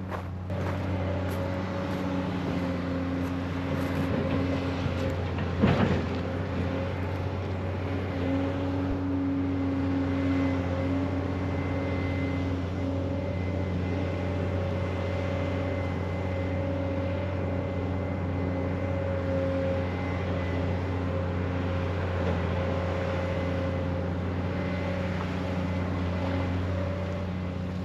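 An engine running steadily with a constant low hum, with one sharp knock about six seconds in.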